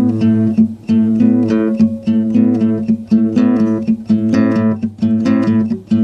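Acoustic guitar played solo, a calm run of plucked and strummed chords and notes, each ringing briefly before the next.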